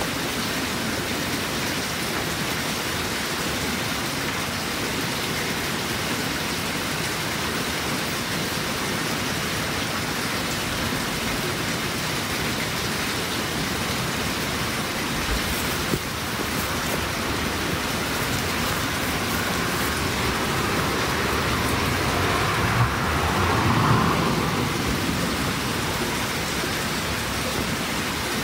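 Steady, even hiss of noise like rain. It swells somewhat, with a low rumble, a little after twenty seconds in, then settles back.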